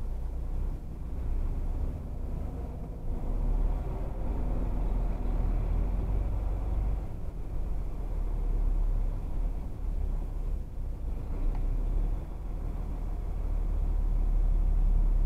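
Steady low engine rumble and road noise heard from inside a vehicle's cab, driving slowly in dense traffic.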